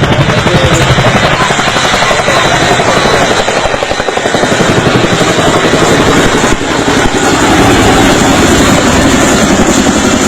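Boeing CH-47 Chinook tandem-rotor helicopter running close by, its rotor blades beating in a rapid, steady pulse.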